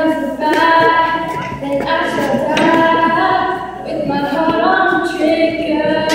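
A young girl's solo voice singing a pop song, holding long notes that slide between pitches.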